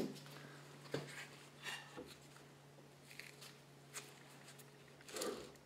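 Faint, sparse clicks and scrapes of metal parts being handled as the valve housing and worm shaft are eased out of a Ford power steering gearbox, with a slightly louder scrape near the end, over a steady low hum.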